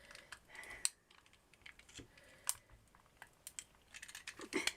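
Irregular light clicks and taps of small toy car parts and wheels being handled and stacked on a table.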